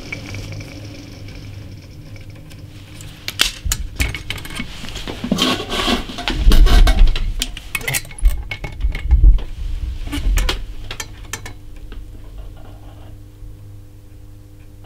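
Metallic clicks, clinks and knocks from handling a Chiappa Little Badger, a break-action single-shot .22 LR rifle, as it is opened, loaded and closed on a shooting rest. The knocks come scattered, the loudest about six to seven seconds in.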